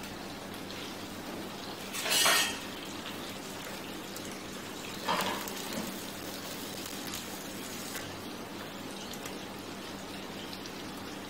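Butter with herbs and crushed garlic, onion and shallot sizzling steadily in a frying pan. A louder short noise comes about two seconds in and a smaller one about five seconds in.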